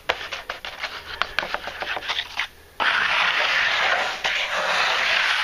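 Notched trowel scraping wet tile adhesive across a plywood board. First comes a rapid run of short scraping strokes, then a brief pause, then one long, continuous scraping sweep.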